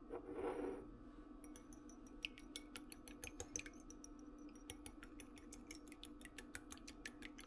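A soft rustle, then a quick, irregular run of light clicks and ticks over a steady low hum.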